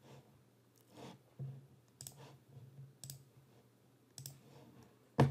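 Scattered clicks of a computer mouse, about seven of them, mostly faint, with one much louder click near the end.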